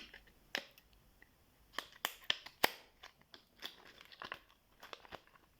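Stiff plastic blister packaging being worked open by hand, giving irregular crackles, crinkles and sharp snaps.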